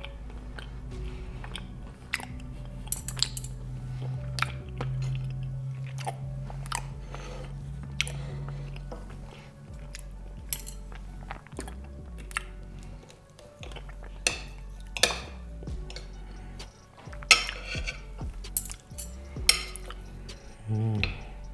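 Chocolate-coated biscuit truffles being eaten: irregular crunches and chewing, with a spoon clicking against a ceramic plate. Soft music plays underneath.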